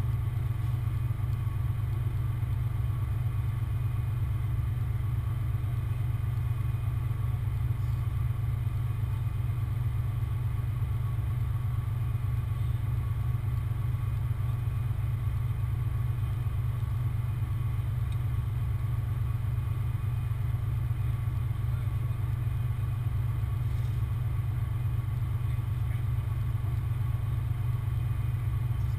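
Large engine running steadily at a constant speed, an even low rumble that does not change.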